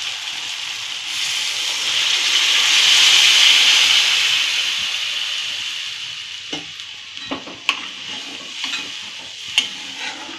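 Hot fried onion-tomato masala sizzling in a steel kadhai, the sizzle swelling loudly as water is poured in and fading after a few seconds. A steel spoon then knocks and scrapes against the pan several times as the curry is stirred.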